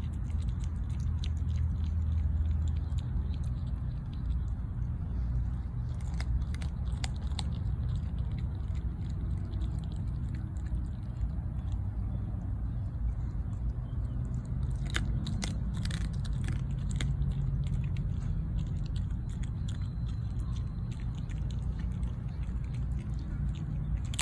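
A dog chewing a raw chicken leg quarter, bone and all. Wet chewing is broken by clusters of sharp crunches about six seconds in, again around fifteen to seventeen seconds in, and near the end, over a steady low rumble.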